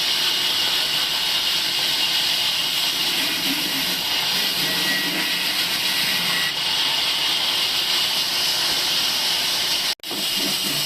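Table sawmill machine running with a steady, loud high hiss, dropping out for an instant about ten seconds in.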